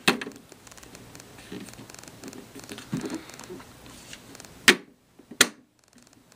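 Handling noise of a small plastic toy washing machine being moved: soft rustling and light bumps, with two sharp clicks less than a second apart near the end.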